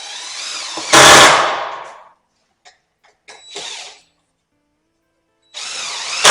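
Cordless power driver driving screws into a wooden slat: it spins up, then runs suddenly loud with a hammering rattle as each screw bites. There are two long runs and a short trigger pull between them.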